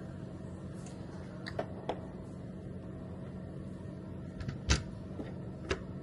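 A few scattered clicks and knocks of objects being handled, the loudest about three-quarters of the way through, over a steady low hum.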